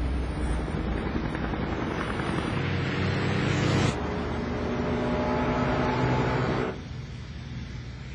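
Engines of a truck and a pack of motorcycles driving: a steady engine drone that swells, breaks off abruptly about four seconds in, carries on, and drops away near the end.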